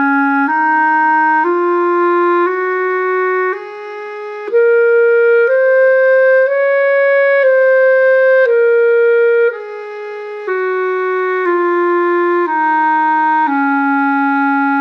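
Clarinet playing the E-flat major scale over one octave, up and back down, about one note a second in even steps. One note on the way up and its match on the way down are noticeably softer, and the last note is held longer.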